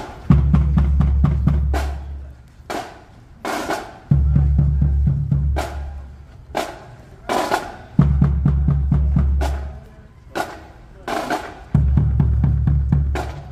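Marching band drumline playing a cadence: snare rolls over low bass drum strokes, broken by sharp accented hits. The pattern repeats about every four seconds.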